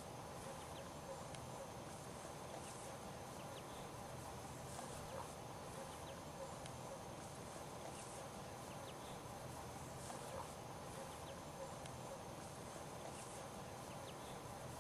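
Faint outdoor ambience: a steady low background hum with faint, brief insect or bird chirps every couple of seconds.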